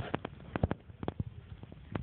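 A quick series of irregular light taps and knocks, about eight in two seconds, clustered in the first second.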